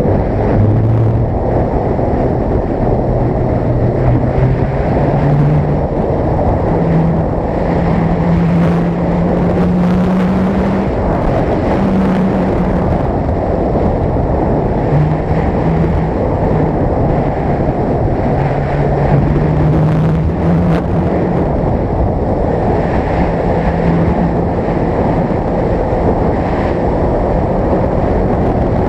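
Suzuki GSX-R sport motorcycle engine running at speed, under a heavy, steady rush of wind on the microphone. The engine note climbs in steps and falls back several times as the rider accelerates and eases off through the bends.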